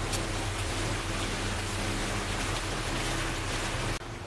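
Wind buffeting the camera microphone: a steady rushing noise with a faint low hum underneath, cutting off abruptly near the end.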